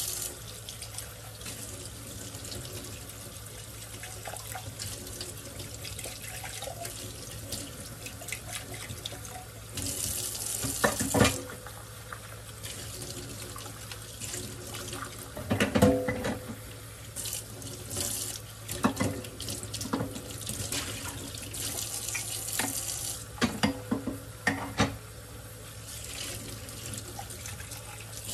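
Kitchen faucet running steadily into a stainless steel sink while mugs are rinsed by hand, with water splashing off them. A few sharp clinks and knocks of crockery against the sink, the loudest about halfway through and a quick cluster near the end.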